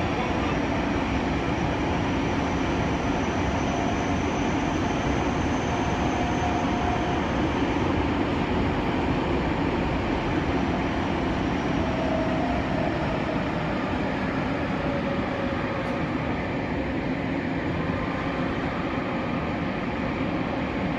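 Running noise inside a Nagoya Municipal Subway 6050-series car: a steady rumble of wheels on rail and traction gear. Over it runs a faint high whine from the Toyo IGBT-VVVF inverter, which rises a little in pitch and fades out about seven seconds in.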